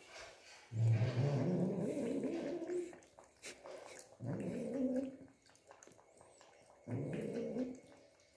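Domestic cat growling in three long, low, wavering spells, the first about a second in and the longest, as it stands over its bowl of milk: an angry cat growling over its food.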